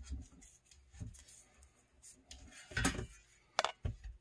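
Light handling noises of window-frame work: faint scraping of a fuzzy weather strip being slid into the vinyl frame's groove with pliers, then a few sharp clicks and knocks as the aluminium screen frame is handled, the loudest about three seconds in.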